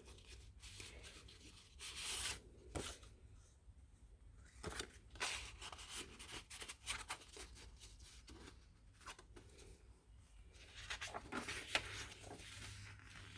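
Paper rustling and crinkling as the pages, envelopes and tags of a handmade junk journal are handled and turned, in short irregular bursts with a few light taps.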